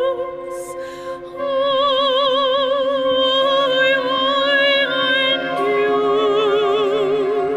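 Soprano singing long held notes with a wide vibrato over sustained chords from a small chamber ensemble. The voice drops away briefly about a second in, then comes back, moving to new pitches near the middle.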